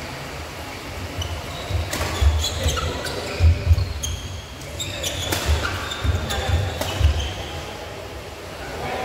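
Badminton rally: sharp racket hits on the shuttlecock, thudding footsteps and short shoe squeaks on the court, busiest from about two to seven seconds in.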